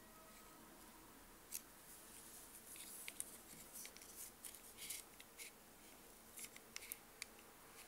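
Faint, irregular clicks and short scrapes from a digital caliper's sliding jaw being pushed open and handled against a watch case, starting about a second and a half in and stopping shortly before the end.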